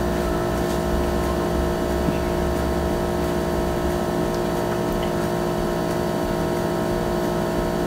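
Steady machine hum with several constant tones, holding level throughout without change.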